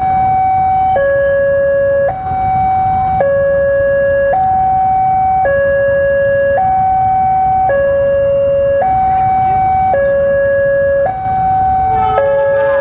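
Railway level-crossing warning alarm sounding with the barrier down: a loud electronic two-tone signal switching between a higher and a lower note about every second. Near the end, another pitched sound joins in.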